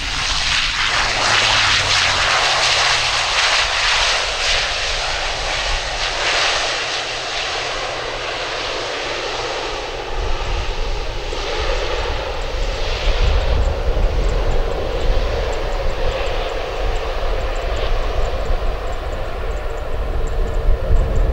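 Wings Air ATR 72-600's twin turboprop engines and propellers during the landing roll after touchdown. A loud rushing roar over the first several seconds eases at about eight seconds into a steadier engine hum with a held tone as the aircraft slows on the runway.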